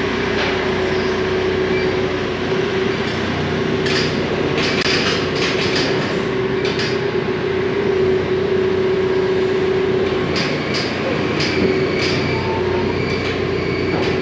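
Telehandler running with a steady droning hum as its boom reaches into a steel shipping container, with clusters of metallic clanks and scrapes ringing in the container about four seconds in and again toward the end.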